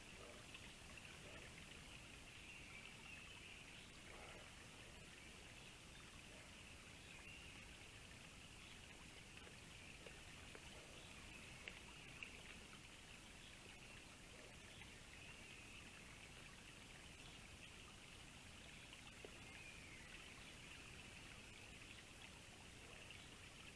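Near silence: a faint steady hiss with a thin high whine running under it, and two faint clicks near the middle.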